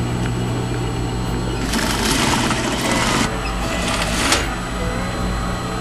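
Electric sewing machine running, stitching in a concealed zipper on a pillow cover. Its steady hum changes about two seconds in, where a noisier stretch of a second or so begins.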